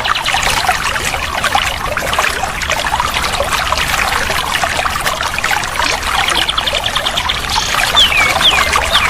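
Water trickling and splashing in a steady stream. Birdsong over it: a fast, even rattling trill about halfway through, then three short falling whistled notes near the end.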